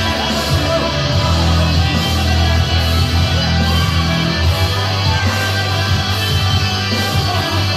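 Loud rock music with guitar over a steady bass line that moves between held notes.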